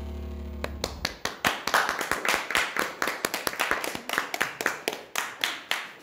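A small group clapping their hands: a spell of uneven claps that starts just after the last note of the dance music dies away, less than a second in.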